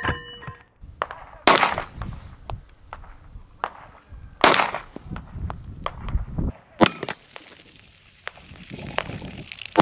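Glock 30S .45 ACP compact pistol firing three shots a few seconds apart, each with a short echo, with fainter cracks and knocks in between.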